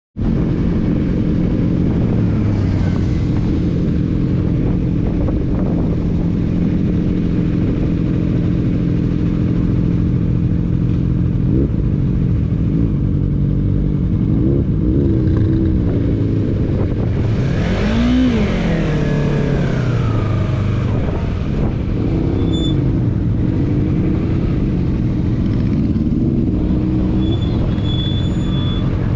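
Motorcycle engines idling in a queue, a sport bike's engine close by, with steady idle notes that shift as bikes rev and move off. About eighteen seconds in, an engine note rises and then falls away.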